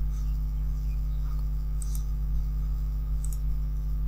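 Steady low electrical hum with a few faint computer mouse clicks, about two seconds and three seconds in.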